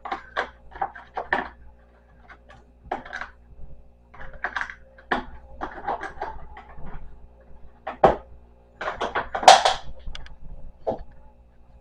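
Crayons clicking and clattering as they are put back one at a time into the drawer of an art set, with a louder clatter about nine and a half seconds in.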